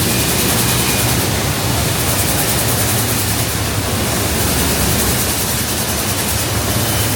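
Steady hum and hiss of factory machinery, with a strong low hum and no distinct clicks or strokes.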